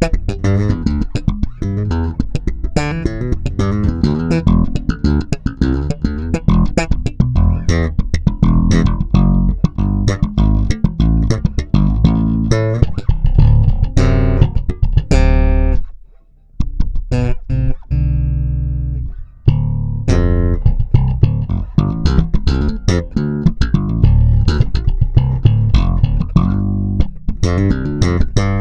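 Human Base Max 5 five-string electric bass played fingerstyle: fast runs of plucked notes. A little past halfway the playing stops briefly, then a held note rings for a couple of seconds before the quick playing resumes.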